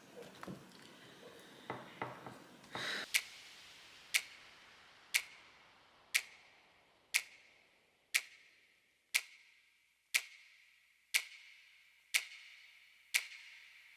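Clock ticking about once a second, each tick sharp with a short ringing tail, starting about three seconds in after some faint rustling.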